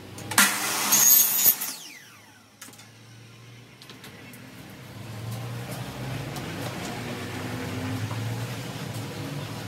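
A power tool runs in a short, loud burst with a high whine about half a second in, then spins down with a falling pitch. A steady low machine hum then builds and carries on.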